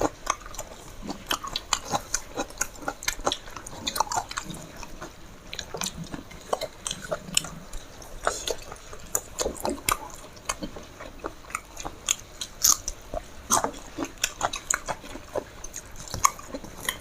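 A person eating close to the microphone: irregular short, wet clicks and smacks of chewing, a meal of rice and chicken curry.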